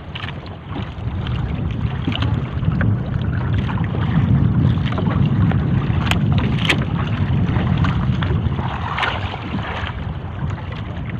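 A gill net full of sardines being hauled by hand into a wooden fishing boat: rustling of wet net and fish, with sharp knocks against the hull, over a steady low rumble.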